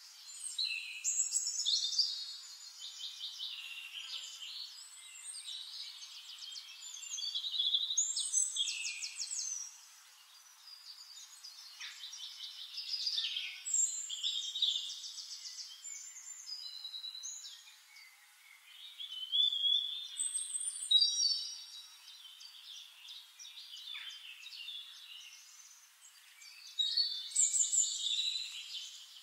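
A songbird singing: five loud phrases of fast trills and gliding notes, about six seconds apart, with quieter chirps between them.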